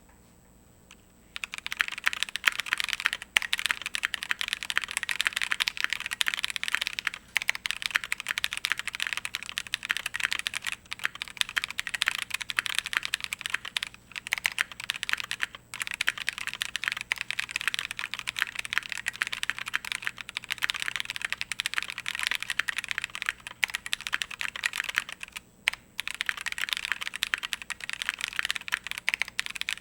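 Fast, continuous typing on a custom mechanical keyboard with lubed NovelKeys Cream linear switches on a polycarbonate plate, with case muting foam and PBT keycaps. The typing starts about a second in and runs with a few brief pauses.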